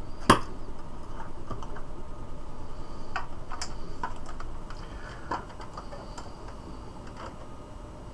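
Small hard objects being handled on a desk: one sharp knock about a third of a second in, then scattered lighter clicks and taps.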